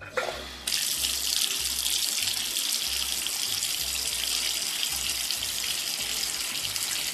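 Shower water spraying in a steady hiss that starts within the first second.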